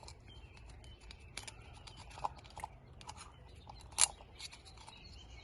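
Oily fingers working a rubber O-ring into the groove of an oil filter housing cap: faint scratching and small clicks, with one sharper click about four seconds in.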